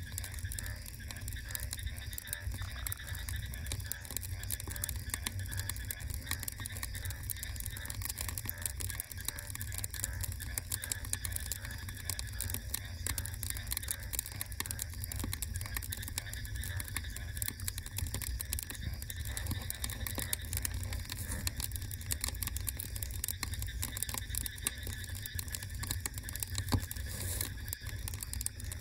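Wood fire crackling, with many small irregular pops and snaps over a steady low rumble.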